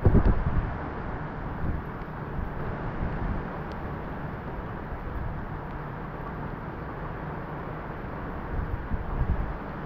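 Wind ahead of a hurricane, a steady rushing with gusts buffeting the microphone: hardest right at the start, and again briefly near the end.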